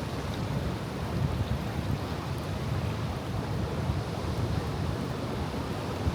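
Pacific Ocean surf washing against a rocky shore, a steady rush of water, with some wind on the microphone.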